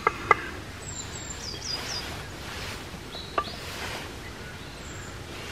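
Sharp knocks of sticks and planks being handled and set in place: two close together at the start and one about three and a half seconds in. Small birds chirp in between over a steady outdoor hiss.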